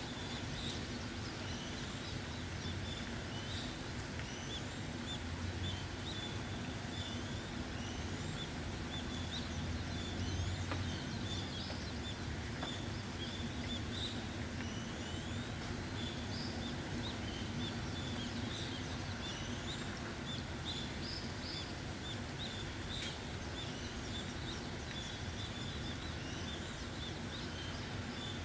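Steady rain falling, with many small birds chirping throughout in short, high calls over a faint low hum.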